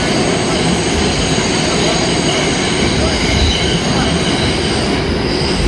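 New York City subway trains running at speed side by side in a tunnel: a loud, steady rumble and rattle of steel wheels on the rails, with high squealing tones from the wheels coming and going.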